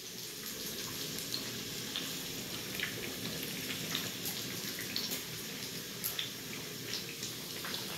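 Oil sizzling in a frying pan as a besan-and-potato-topped naan fries: a steady crackling hiss with scattered small pops.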